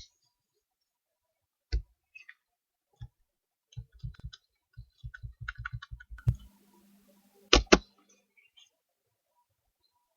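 A scatter of sharp clicks and knocks close to the microphone, each with a low thud: a few single ones, then a quick run of about a dozen, then two loud ones close together near the end, with a brief hiss and low hum just before them.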